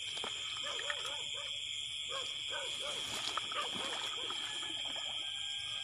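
Night chorus: a steady high-pitched drone of insects, with frogs calling in short runs of rapid croaks throughout.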